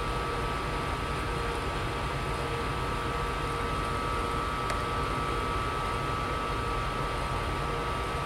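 A stopped freight train standing on a yard track: a steady low rumble with a thin, steady whine above it. There is one faint click a little before the five-second mark.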